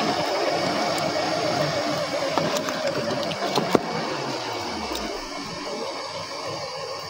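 Electric motor and gears of a 4x4 RC rock crawler whining steadily, with a few sharp clicks; about halfway through, a low tone falls away as the motor slows.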